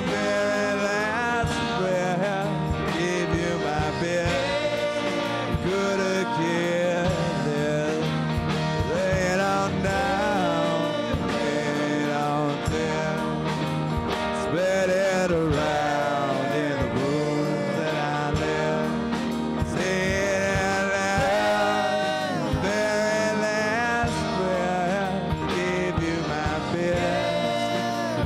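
Live band music: electric guitars and a bowed electric upright string instrument, with voices singing.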